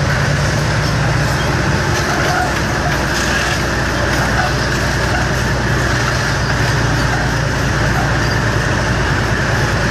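Soviet IS-2 heavy tank driving past, its V12 diesel engine running loud and steady under the clatter of steel tracks. A T-34-85 tank follows close behind near the end.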